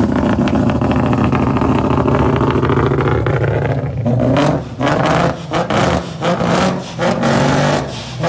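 ProCharged S550 Mustang GT's 5.0 V8 with full headers and straight-piped exhaust, running loud as it drives alongside. A steady drone rises about three seconds in, then turns choppy from about four seconds in, the level cutting in and out unevenly.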